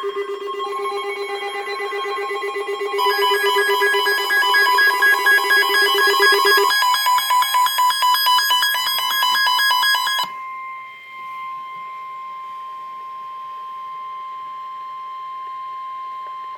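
NOAA Weather Radio 1050 Hz warning alert tone, signalling that a warning is about to be read, held steady under a weather-radio receiver's own alarm. The receiver alarm is a rapid pulsing beep in several pitches. That alarm cuts off suddenly about ten seconds in, leaving the single steady alert tone.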